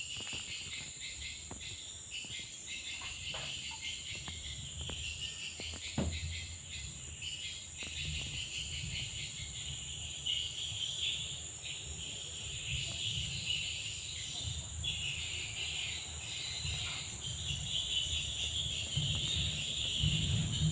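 Steady, high-pitched insect chirring, with a low rumble underneath and a few faint clicks.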